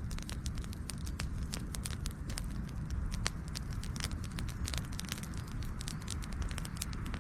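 Campfire burning with a steady low rumble of flames and frequent sharp, irregular crackles and pops of the burning wood.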